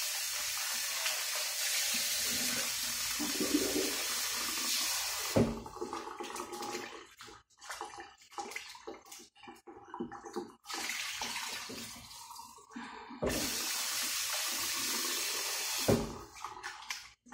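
Kitchen tap running into a stainless-steel sink while chicken is rinsed in a metal bowl. The water stops about five seconds in, giving way to splashing and clinks of the bowl, then runs again for about three seconds near the end.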